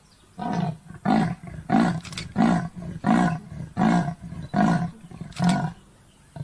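A leopard's sawing call: a run of eight hoarse grunts, about one every two-thirds of a second, with softer in-breaths between them.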